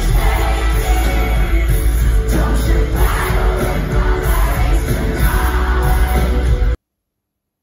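Live amplified pop concert heard from within the crowd: a singer over a band with very heavy bass, with crowd yelling. It cuts off suddenly near the end, leaving silence.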